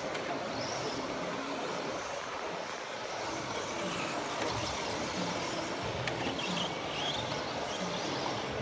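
Radio-controlled off-road model cars running on a dirt track, over the steady noise of a busy hall, with a few faint short whines and a brief click.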